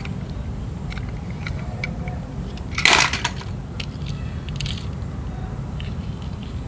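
Toy cars being handled over a tub of plastic balls: light clicks and knocks, and one loud clatter about three seconds in, over a steady low hum.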